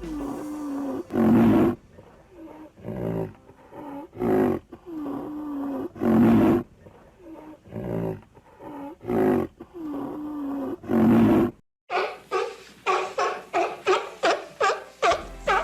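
Tiger roaring in a series of loud calls about every one to two seconds, with lower moaning tones between them. After a brief silence near the end, a faster run of short, higher-pitched calls begins.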